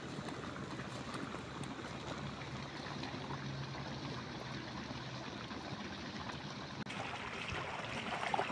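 Water running in a shallow stream: a steady, even trickling.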